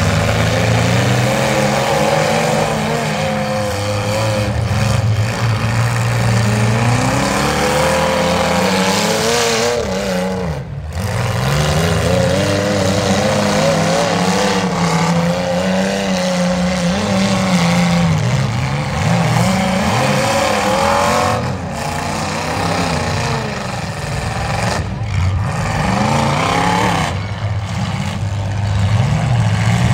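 Demolition derby limousines' engines revving hard and dropping back again and again as the cars spin their wheels and push through the mud, several engines overlapping.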